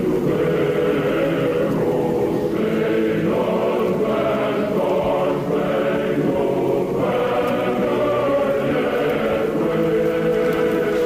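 Choir singing slow, held chords in a chant-like style. The harmony shifts every second or two.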